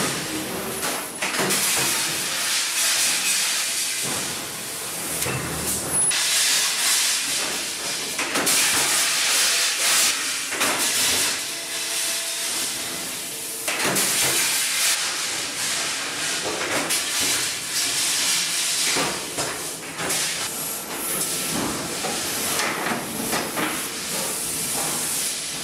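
Hydraulic open-die forging press working a glowing hot steel ingot: loud hissing with scattered knocks and clanks, the sound changing abruptly a few times.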